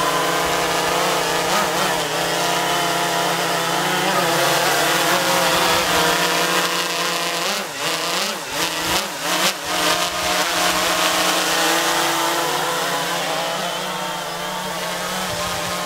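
DJI Phantom 3 quadcopter's brushless motors and propellers buzzing in flight, a steady whine of several tones. Around eight to ten seconds in, the pitch wavers up and down as the motor speeds change, and the sound grows a little quieter near the end.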